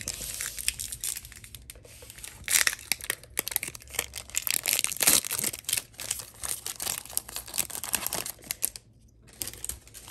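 Foil booster pack wrapper crinkling and tearing as it is ripped open by hand: a dense stream of crackles, with a brief pause near the end.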